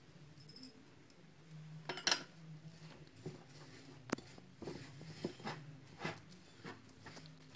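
Fingers mixing and pressing a crumbly milk-powder dough in a ceramic bowl: irregular soft squishes and light knocks against the bowl, the loudest about two seconds in.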